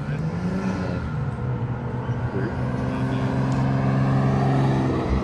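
A car's engine running as it drives slowly past, its pitch rising a little about a second in, then holding steady and growing louder toward the end.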